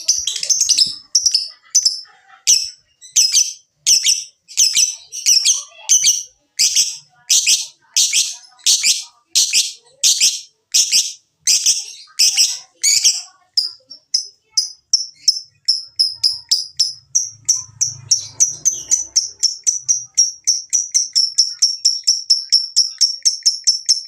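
Lovebird giving its long chattering 'ngekek' call: a run of high, repeated notes, fuller and slower at first, then about halfway through quickening into short notes about four a second.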